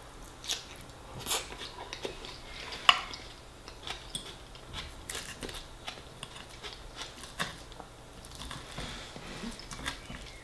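Close-up eating sounds: chewing a mouthful of soft fish pie and salad, with a metal fork and spoon clicking and scraping on a ceramic plate. Short scattered clicks throughout, the sharpest about three seconds in.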